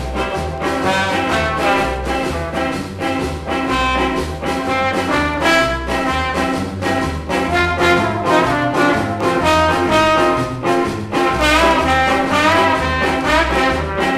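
Instrumental break of an early ska (blue beat) record: a brass instrument solos over a steady bass line and evenly spaced choppy rhythm chords. Near the end the horn holds wavering notes.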